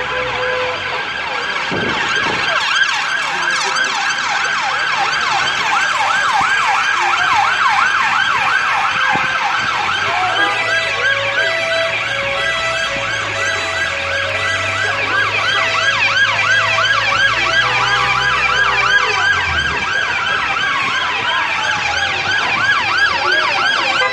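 Several police sirens sounding at once on a fast yelp, overlapping each other, with one siren winding down in pitch near the end.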